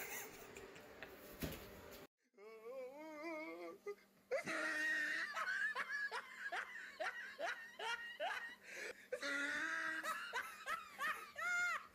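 High-pitched laughter, a run of short falling 'hee' sounds about two a second, with a wobbling pitched sound just before it. The sound cuts out suddenly about two seconds in.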